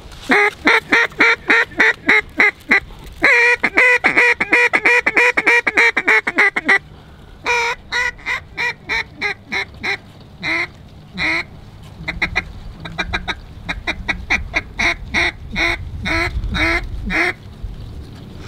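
Hand-blown duck call imitating a hen mallard: a quick string of quacks, a dense fast rolling run a few seconds in, then slower, spaced quacks calling to passing ducks.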